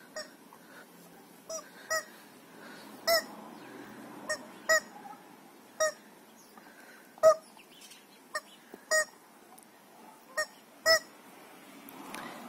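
Rubber screaming chicken dog toy squeezed again and again, giving about a dozen short squeaks at irregular intervals.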